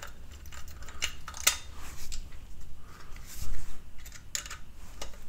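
Scattered sharp metallic clicks and clinks of a steel Allen key and bolt being handled and fitted into an engine mount clamp, with a dull knock about three and a half seconds in.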